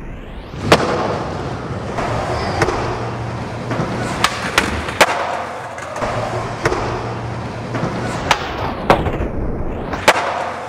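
Skateboard wheels rolling on concrete, broken by sharp clacks of the board popping and landing, about nine in all. The loudest come about a second in, at about five seconds and near nine seconds.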